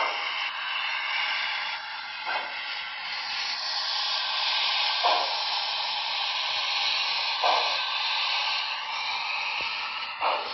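Sound decoder of an HO scale Broadway Limited Reading T1 4-8-4 steam locomotive, with Paragon3 sound, playing a steady steam hiss. A short, lower burst comes about every two and a half seconds.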